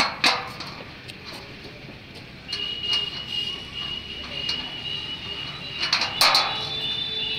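Metal clinks and knocks as a steel mounting bracket is handled and fitted against the back of a satellite dish, loudest about a quarter second in and again around six seconds. From about two and a half seconds in, a steady high whistle-like tone sounds in the background.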